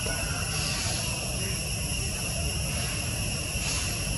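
ALCo WDG-3A diesel locomotive's 16-cylinder engine running with a steady low rumble as the train rolls slowly in. Over it is a continuous high-pitched buzz of insects.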